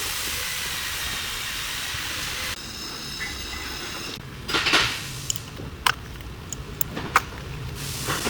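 A steady hiss that cuts off suddenly about two and a half seconds in, followed by scattered sharp clicks and knocks, with a louder rustling burst a little past the middle.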